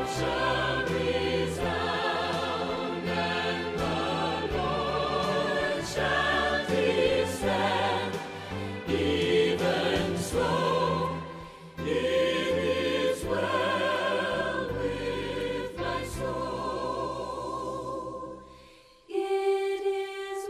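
Choir singing with instrumental accompaniment. The music fades out briefly near the end, then a new sustained chord begins.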